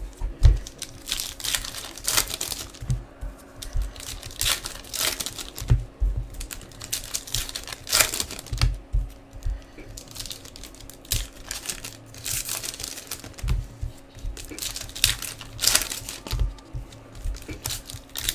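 Foil wrappers of baseball card packs being torn open and crinkled in irregular bursts, with low knocks from the packs and cards being handled.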